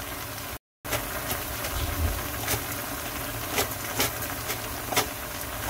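Sliced onions, sweet peppers and carrots cooking in a pan on the stove: a steady sizzle with scattered small pops and crackles. The sound drops out for a moment under a second in.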